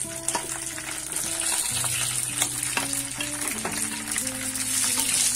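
Whole green chillies sizzling as they drop into hot mustard oil with fried cumin and mustard seeds, while a spatula clicks against the plate and pan several times. Soft background music plays underneath.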